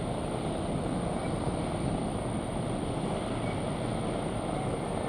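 Steady wind noise rushing over the microphone on the open deck of a moving ship, with a low rumble underneath.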